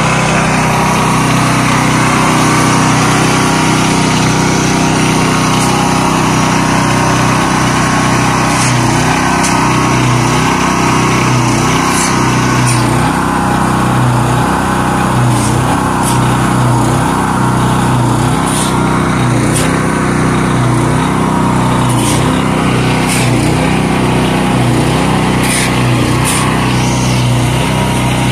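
The small engine of a GDHM21 slipform concrete curb machine runs steadily as the machine extrudes a curb. Its low drone pulses in an even rise-and-fall about once a second, with scattered sharp clicks over it.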